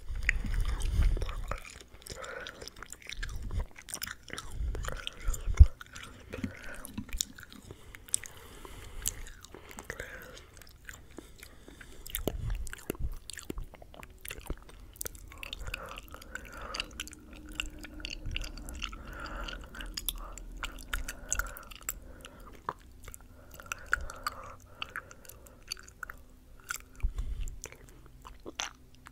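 Close-miked ASMR mouth sounds: irregular wet clicks and smacks like slow chewing. Several low thumps come through, the sharpest about five seconds in.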